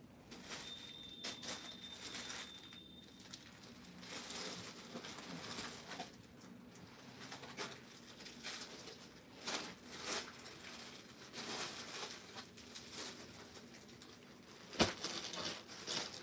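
Cloth rustling in irregular bursts as suit fabric and a printed shawl are handled and shifted. A thin steady high tone sounds for about two and a half seconds near the start, and a single sharp click comes about fifteen seconds in.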